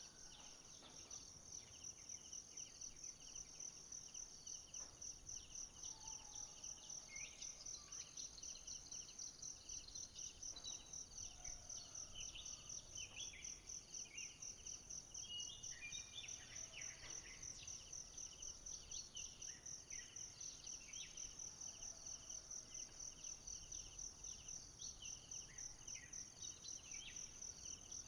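Faint forest ambience: a chorus of insects keeps up a steady, high, evenly pulsing trill, with scattered short bird chirps throughout.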